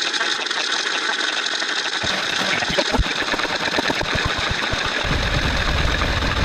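A run of mechanical sound effects that changes twice: a fast rattling at first, then irregular low knocks from about two seconds in, then a steady low engine-like rumble from about five seconds in.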